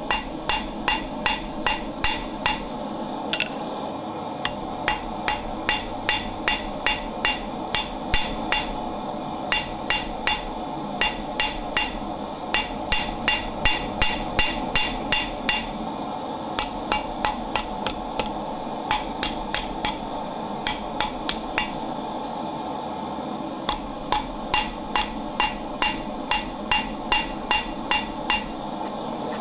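Hand hammer forging hot O1 tool steel on an anvil: quick blows about three a second, each with a bright metallic ring from the anvil. The blows come in runs, with a short pause a few seconds in and another about two-thirds through, over a steady background noise.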